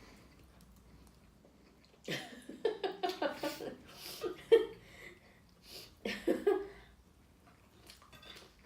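Two short bursts of a person's voice without clear words, a longer one about two seconds in and a brief one about six seconds in, with one sharp clink about four and a half seconds in; quiet room tone between.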